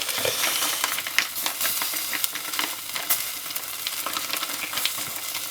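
Chicken sausages and beans from a military ration pack frying in a pan: a steady sizzle with scattered small pops.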